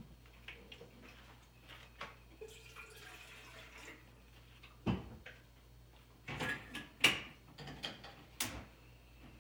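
Rustling and knocking against a covered phone's microphone as it records unnoticed, with a few sharper knocks about five seconds in, around seven seconds and near the end.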